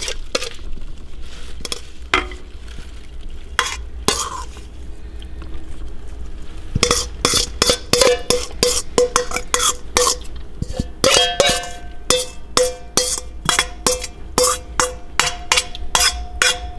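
Papaya salad being mixed in a bowl: a utensil stirring and knocking against the bowl, scattered at first, then settling into a regular beat of about two knocks a second, each with a short ringing tone.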